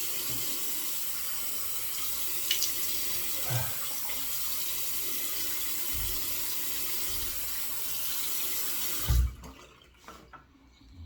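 Water running steadily from a tap into a sink, shut off abruptly about nine seconds in with a low knock, followed by a few faint handling sounds.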